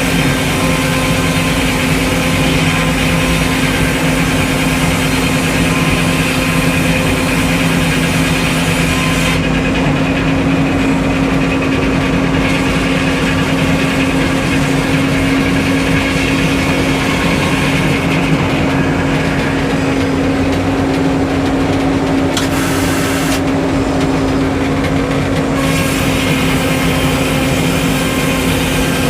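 Sawmill engine running steadily at speed, with a high hiss over it that drops out several times.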